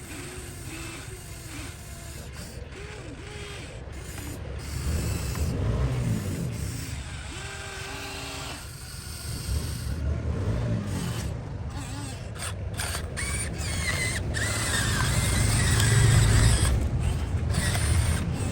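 Small electric motors and gears of radio-controlled construction models running, with many short clicks, brief whines and swells of low rumble that peak near the end.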